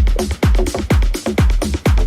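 Electronic dance music with a steady four-on-the-floor kick drum, about two beats a second, and a repeating synth figure between the beats.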